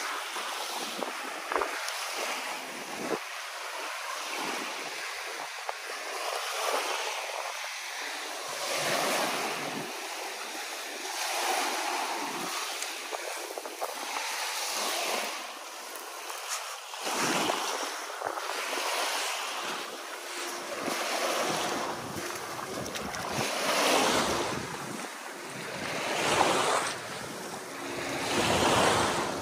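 Small sea waves washing against a rocky shore, swelling and easing every few seconds, with wind buffeting the microphone.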